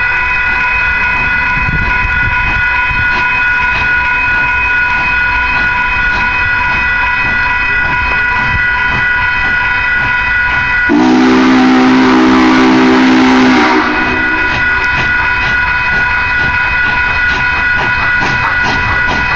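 Railroad grade-crossing bell ringing steadily. About 11 seconds in, the approaching Union Pacific 844 steam locomotive sounds its chime steam whistle in one blast of nearly three seconds, with a hiss of steam, and then the crossing bell is heard ringing again.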